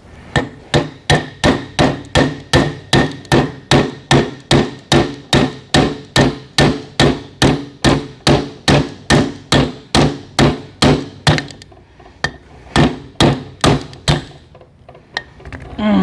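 A hammer striking a metal transfer case housing in a steady run of blows, about two and a half a second, each ringing briefly, knocking the case apart. The blows stop about eleven seconds in, then four more follow after a short pause.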